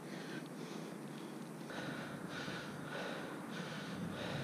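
A person breathing close to the microphone, in soft, even breaths.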